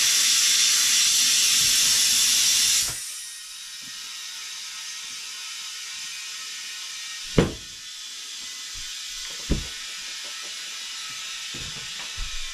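Compressed air hissing through a clip-on air chuck into a new tire on its wheel. The hiss is loud for the first three seconds, then drops to a steadier, quieter hiss as the tire takes air. Two sharp pops, about halfway through and again two seconds later, as the tire beads seat on the rim.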